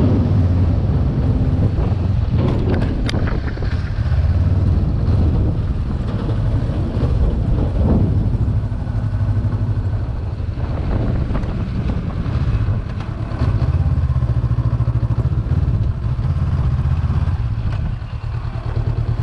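Honda CB500X's parallel-twin engine running at low revs while the bike is ridden slowly, its pitch rising and falling a little.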